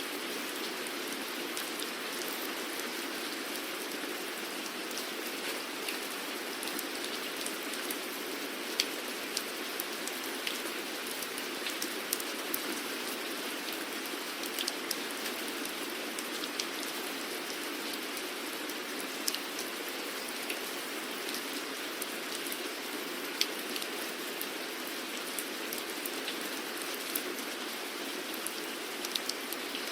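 Steady rain falling, a constant hiss with many individual drops ticking sharply on a surface throughout.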